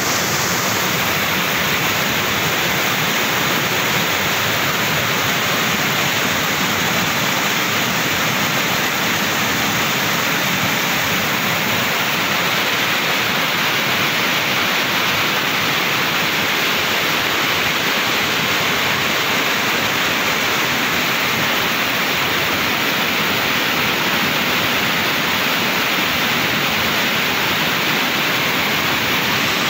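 A rain-swollen river in flood, its brown water rushing steadily past bridge piers and pouring over the bank edge. It makes a loud, continuous rush of water.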